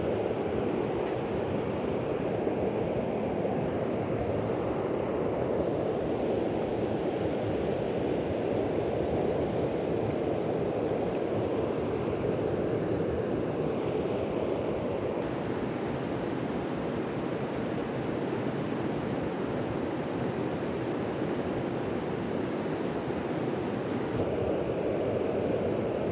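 Steady, even rushing of moving water, with no distinct sounds standing out.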